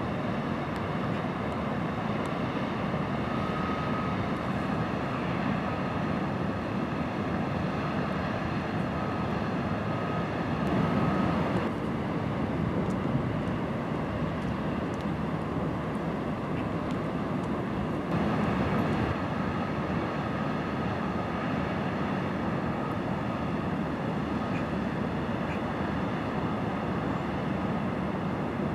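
Steady low rumble and hiss of a passing cargo ship's engine and bow wash, with a faint steady whine at times. The background changes abruptly twice.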